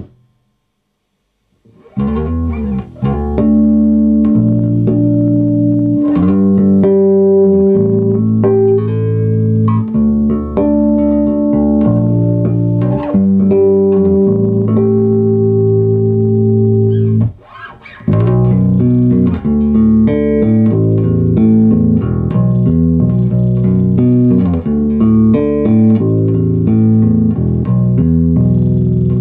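A 1979 Fender Precision Bass being played: plucked electric bass notes with some long held notes, starting about two seconds in after a short silence, with a brief pause a little past the middle.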